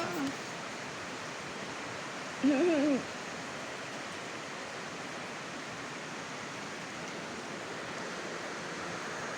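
A cat gives one short, wavering meow about two and a half seconds in, over a steady hiss.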